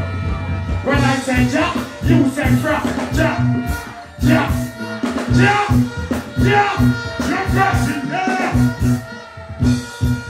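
Live reggae-style band music through a stage PA, with a vocalist singing over a steady bass rhythm.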